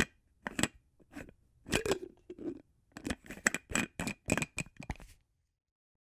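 A container lid being handled and worked: a run of irregular clicks, knocks and short scrapes, with a faint ring under the later ones, stopping about five seconds in.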